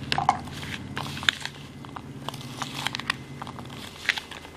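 Steel spoon stirring diced raw mango coated in chilli powder and salt in a plastic bowl: irregular clicks and scrapes of the spoon against the bowl and the mango pieces.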